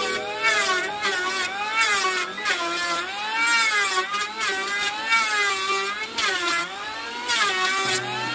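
Electric hand planer running as it cuts wood, its motor whine dipping in pitch and rising again about twice a second as the blades bite on each short pass, with a hiss of shavings being cut and thrown.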